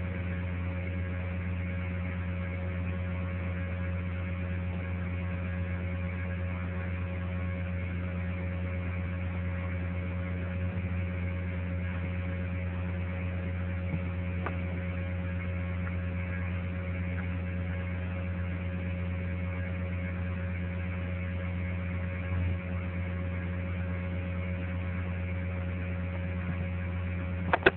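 Steady electrical mains hum with a low buzz and an even hiss, with no programme sound over it. A few sharp clicks come just before the end.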